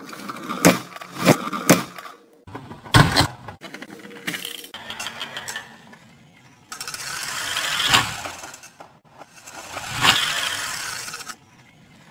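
Toy cars clicking and knocking against a glass mirror, several sharp clacks in the first few seconds, then two longer rolling, scraping rushes that swell and fade as a pull-back toy car runs across the glass.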